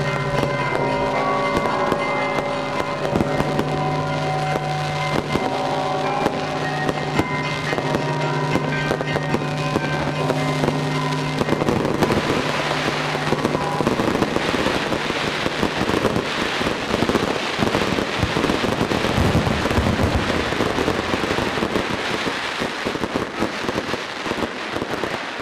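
Fireworks going off, sharp bangs and crackles over music with long held tones. About halfway through the music stops and dense firework crackling takes over, easing off slightly near the end.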